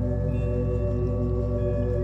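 Ambient relaxation music of long, ringing held tones over a steady low drone, with a new higher tone coming in now and then.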